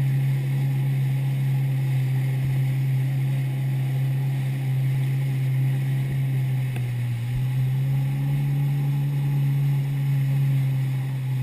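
Kawasaki jet ski's engine running steadily under way at cruising speed, a steady low hum that rises slightly in pitch about seven seconds in.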